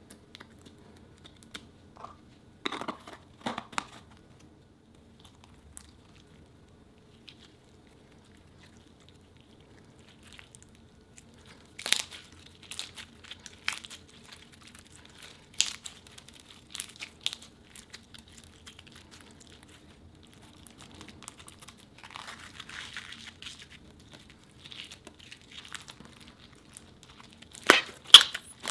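Slime and jelly cubes being handled and worked by hand: sporadic crinkling, crackling and sharp snapping sounds with quiet gaps between, a softer run of crinkling in the later part, and the loudest snaps near the end.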